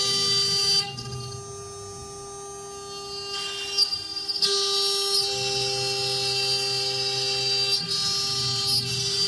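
Four-spindle CNC router running, its spindles giving a steady high whine while the bits cut MDF with a hissing noise. The cutting noise drops away about a second in and comes back about four and a half seconds in.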